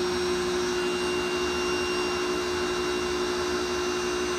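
Pressure washer's three-piston positive displacement pump running steadily while pumping waste oil, a constant hum with a few steady tones.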